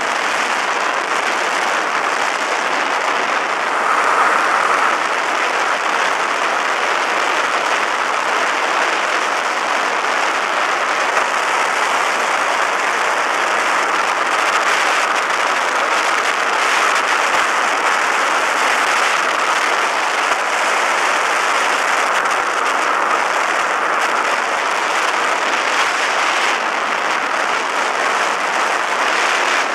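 Steady, even rush of airflow and engine heard from the seat of a motorized hang glider (trike) in flight.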